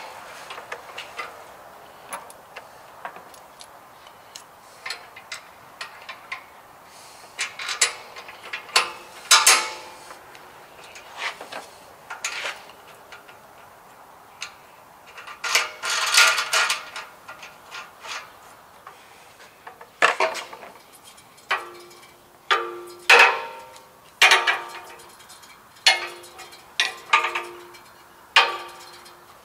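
Clicks, knocks and rattles of a walk-behind string trimmer's metal tube handle and its bolts and knobs being fitted by hand. Near the end come about seven louder strokes roughly a second apart, each with a short ringing note.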